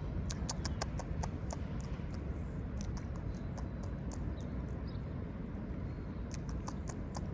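Squirrel eating a nut it has been fed, a run of short crisp cracks and crunches, thickest in the first two seconds and again near the end, over a steady low background rumble.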